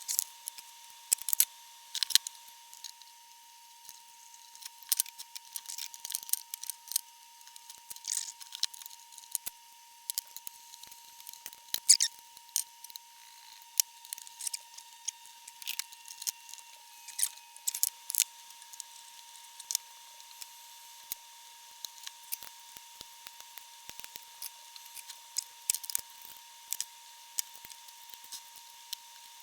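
Irregular sharp clicks and snips of small hand tools at work on an amplifier chassis during recapping, over a faint steady high-pitched tone.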